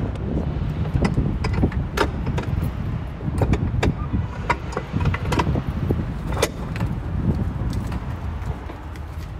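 Keys jangling, with a series of sharp metallic clicks and knocks from a lock and a door being worked, over a steady low background rumble.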